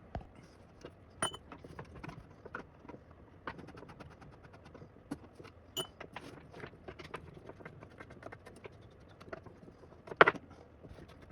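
Scattered small metallic clicks, taps and scrapes of a screwdriver turning out the foot-mount screws on the base of a 1931 Royal SX typewriter, with one louder knock about ten seconds in.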